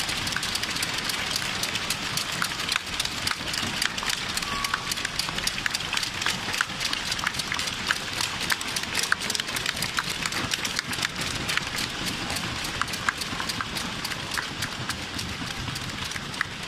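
Arena crowd applauding, many hands clapping in a dense, steady patter that tapers off near the end.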